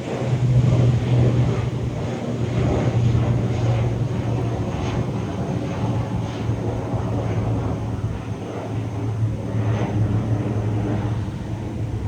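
Jet engines of a Boeing 737 MAX 8 airliner, CFM LEAP-1B turbofans, giving a steady low rumble as the aircraft takes off or lands.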